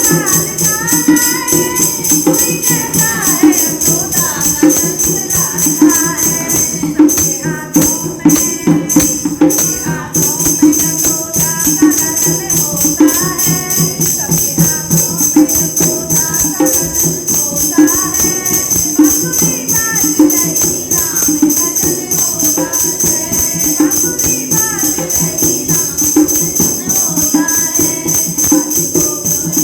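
Women singing a Hindi Krishna bhajan, a devotional song, over a steady rhythmic accompaniment.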